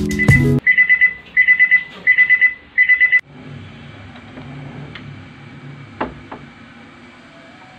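Electronic alarm beeping loud and high, in four quick groups of four beeps, then cutting off suddenly. After it, quieter room sound with a light click or two as a wardrobe door is opened.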